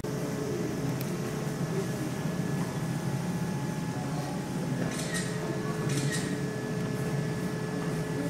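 Steady low machine hum with a faint high tone through it, and two brief hissing sounds about five and six seconds in.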